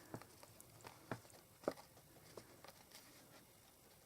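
Near silence broken by a few faint, short taps and light rustles of card being handled and pressed into place, clearest about a second in and again shortly after.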